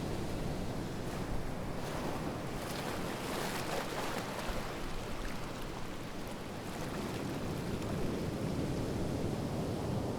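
Ocean waves washing onto a shore, one wave swelling and hissing as it breaks and spreads a couple of seconds in, then easing back into a steady low rush of surf.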